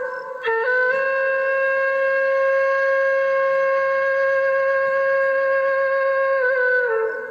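Background music: a wind instrument playing a slow melody, mostly one long held note, with short pitch changes near the start and again near the end.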